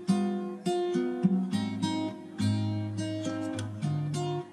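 Background music of an acoustic guitar, with plucked notes and strummed chords following one another.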